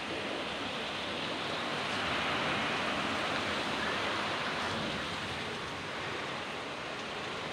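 Heavy rain pouring down in a thunderstorm: a steady, dense hiss of water that swells slightly a couple of seconds in.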